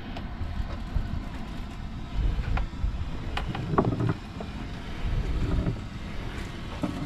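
Wind buffeting the microphone on a small fishing boat at sea, an uneven low rumble that swells and drops, with a few light knocks.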